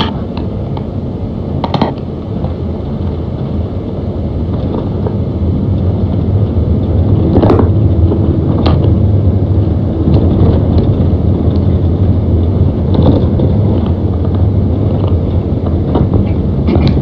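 Inside a vehicle's cabin driving slowly on an unpaved dirt road: a steady low rumble of engine and tyres, with a few sharp knocks along the way.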